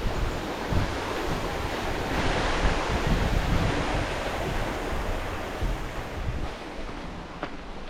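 Wind blowing across the microphone: a steady rush with uneven low rumbling buffets, and a stronger gust about two seconds in that lasts a couple of seconds.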